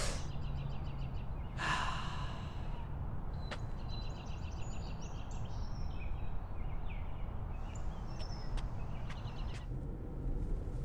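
A person sighs, a breathy exhale about two seconds in, over a steady low hum of background noise with faint high chirps and a few sharp ticks.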